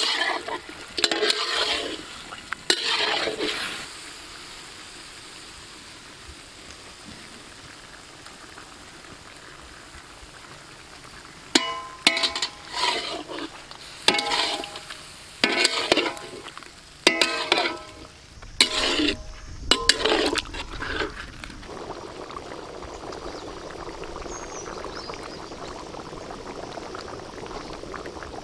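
A spatula scraping and stirring chicken pieces in a black iron kadai in two bursts of strokes, with a faint sizzle of frying between them. From about twenty seconds in the strokes stop and a steady hiss of liquid gravy bubbling in the pan takes over.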